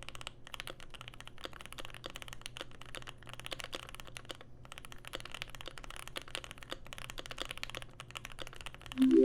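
Typing on a Keychron Q1 mechanical keyboard: a fast run of keystrokes on lubed, filmed Pinoko switches in an aluminium-plate board with tape, Poly-Fil and PE-foam mods, fitted with GMK Olivia Dark keycaps and resting on a desk pad. Near the end a short, louder tone sounds, stepping up in pitch.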